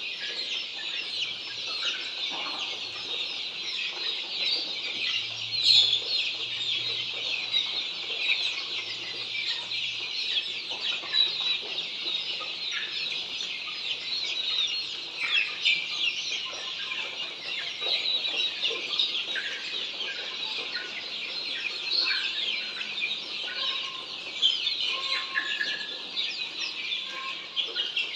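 A large flock of Australorp chicks peeping: many overlapping short, high chirps, dense and continuous.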